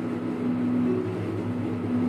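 Steady low machine hum with a few held tones.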